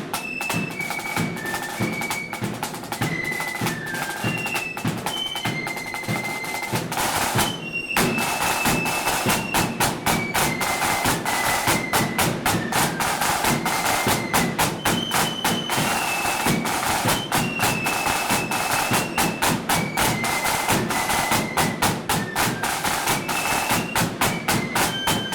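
Blood-and-thunder flute band playing a march: flutes carry a stepping melody over rapid snare drumming and bass drum beats. About seven seconds in there is a short drum roll and a brief break before the band comes back in.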